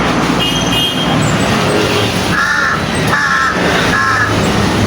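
Black crow cawing three times in a row, each harsh call about half a second long and under a second apart, over a steady low hum.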